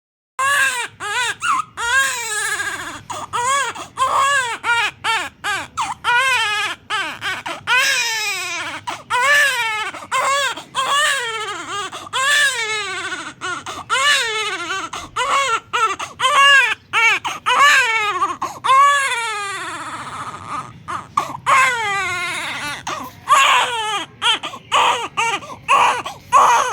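Newborn baby crying in a long run of short, repeated wails, each one rising and then falling in pitch, with brief catches of breath between them. The crying eases briefly about two-thirds of the way through, then picks up again.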